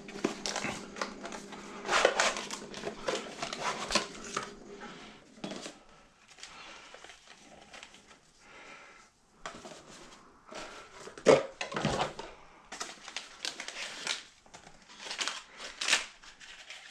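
Hands handling a hard drive and desktop computer parts: irregular clicks, knocks and rustling of plastic and metal, with the sharpest knocks about eleven and twelve seconds in.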